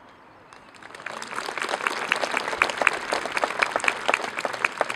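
Audience applauding: scattered clapping begins about a second in and quickly swells into steady applause.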